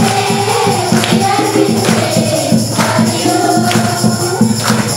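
Music with a steady beat, percussion and a group of voices singing.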